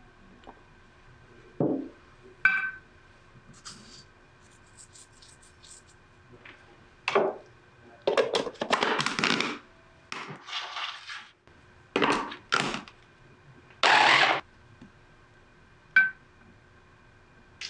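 Plastic mini food-chopper bowl being loaded and fitted: clicks and knocks as butter goes in and the motor head is set on. Then come several short bursts of noise as the chopper is pulsed to cut the butter into the flour, the last one the loudest.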